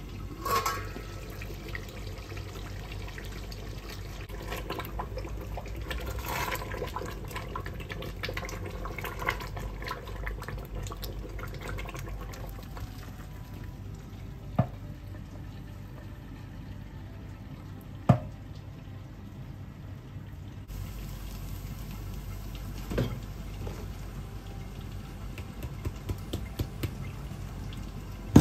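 Kitchen cooking sounds: a steady hiss with occasional sharp knocks of utensils on pots and pans.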